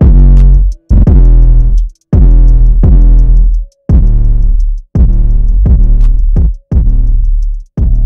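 Heavily bass-boosted hip-hop beat with no vocals: loud, distorted bass notes about once a second under fast ticking hi-hats.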